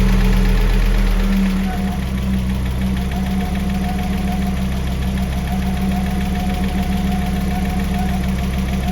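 Audi 3B 20-valve turbocharged five-cylinder engine idling just after a start, the idle settling down about a second and a half in, with a fast, even ticking from the valvetrain: lifter tick, the sign of a hydraulic lifter not holding oil pressure.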